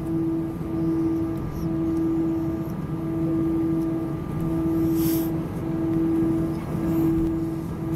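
Cabin hum of a taxiing Airbus A319, its engines at idle: a steady drone with a held tone that dips briefly about once a second.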